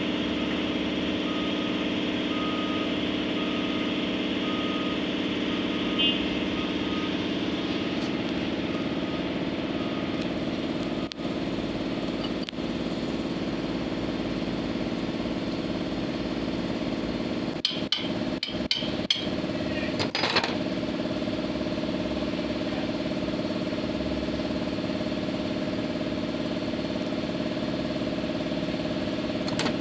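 A truck's diesel engine idling steadily. For the first few seconds an evenly repeating electronic beep sounds over it, and about two-thirds through there is a short cluster of sharp metallic clicks and knocks.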